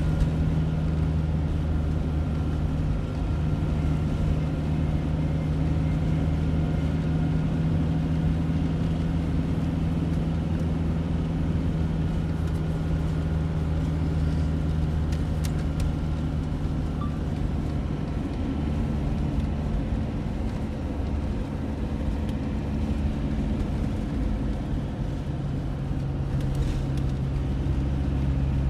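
Car engine running with steady tyre and road noise, heard from inside the moving vehicle. The engine note shifts about two-thirds of the way through and settles on a new pitch near the end.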